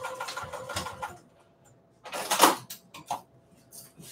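Juki sewing machine stitching a seam in a steady run of stitches, stopping about a second in. About two seconds in comes a short, loud rustle, then a single click.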